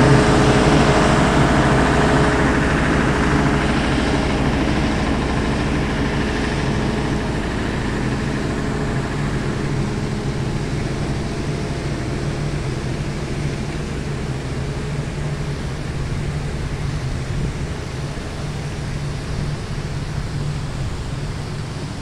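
Generator set engine running with a steady hum, growing gradually fainter.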